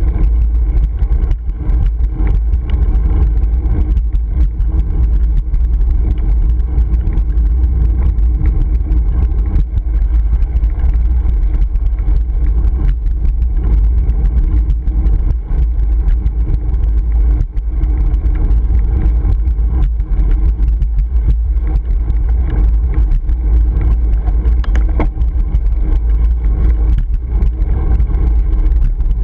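Wind buffeting a GoPro Hero 3 action camera on a moving road bicycle: a loud, steady low rumble.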